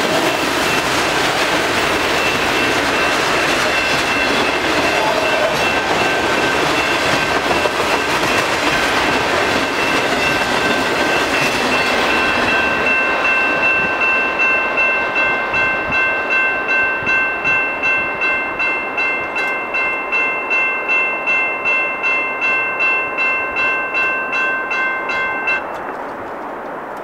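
The last autorack freight cars roll past over a grade crossing with clattering wheel noise while the crossing bell rings. About halfway through the end of the train passes and the noise falls away, leaving the bell ringing alone about twice a second. Near the end the bell cuts off as the crossing gates lift.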